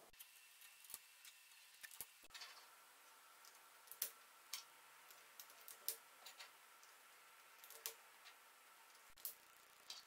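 3D-printed plastic cable chain links clicking as they are snapped together one by one: scattered quiet, irregular clicks, the loudest about four and six seconds in.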